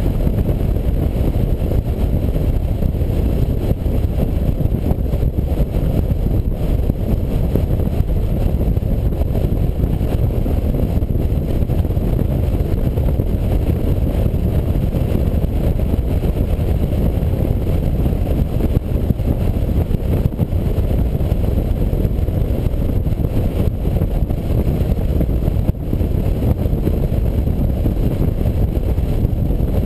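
Touring motorcycle cruising at road speed: steady low rumble of engine, tyres and wind buffeting the bike-mounted microphone.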